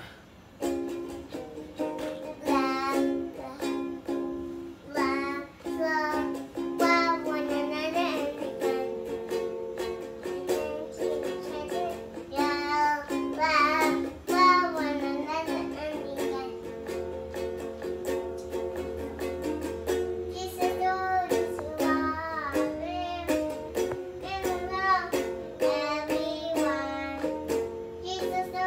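A child singing over steadily strummed ukulele chords, the voice coming in phrases with short breaks while the strumming keeps going.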